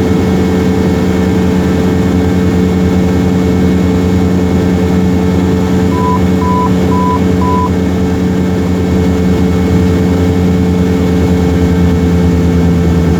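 Cessna 172R's four-cylinder Lycoming engine and propeller running steadily, heard from inside the cockpit. About halfway through, four short high beeps sound in quick succession.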